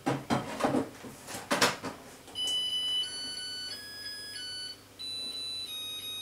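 A few knocks as the inner bowl goes into a Japanese rice cooker, then, about two seconds in, the cooker's electronic beeper plays a short tune of pure stepped notes, signalling that cooking has started.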